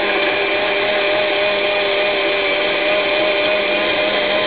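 Countertop blender running steadily at one speed, with an even motor whine, blending a jar full of liquid.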